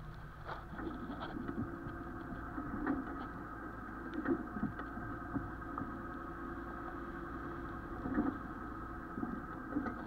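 A steady mechanical hum made of several even tones, with uneven washing and splashing of water along a sailboat's hull as it moves through the sea.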